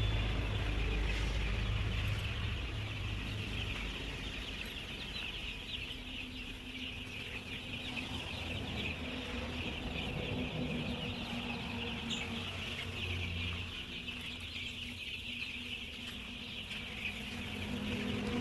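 A flock of young Kaveri chicks, about 18 days old, cheeping continuously in a dense chorus of many overlapping high peeps. A low hum sits under them for the first few seconds.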